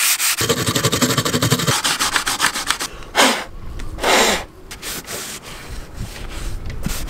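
Hand sanding a boat deck hatch with a sanding block, in quick back-and-forth strokes. Then two puffs of breath blowing the dust away about three and four seconds in, followed by softer rubbing as a cloth wipes the frame.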